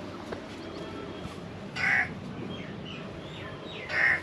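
A bird calls twice, two loud calls about two seconds apart, over fainter chirping of other birds.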